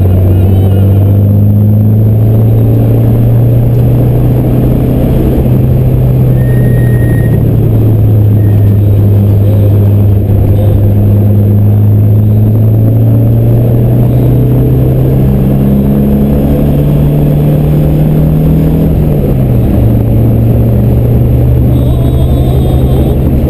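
Race car engine heard from inside the cabin, running loud and hard under way, its note climbing and falling slowly over several seconds at a time, with a sudden drop in pitch late on.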